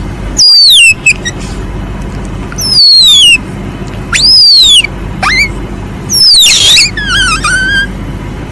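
Lure call for palm civets, a recording of loud, high animal squeals. Four long calls fall in pitch, a second or two apart, with short rising chirps between them and a warbling trill near the end, all over a steady low hum.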